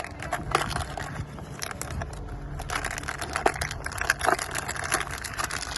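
A product package being opened by hand: a run of irregular crinkling and crackling.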